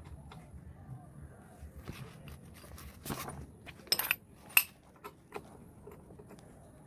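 Metal tools clinking and tapping against scooter parts, with three louder, sharper metallic strikes with a short ring a little before the middle.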